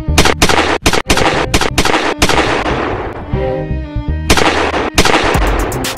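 Gunfire sound effects: a quick volley of shots in the first two seconds trailing off in reverberation, then a faster rattle of shots from about four seconds in, over background music.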